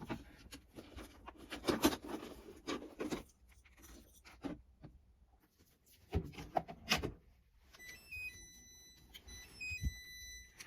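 Scattered clicks, knocks and light rustling of things being handled. About eight seconds in, light music with a simple melody of short high notes begins.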